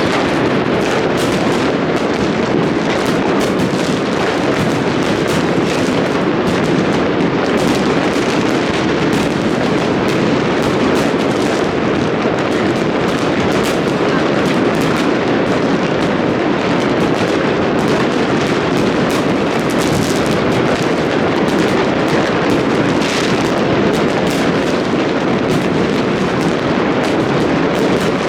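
Dense, continuous barrage of fireworks: many overlapping bangs and crackles, with no pause between them.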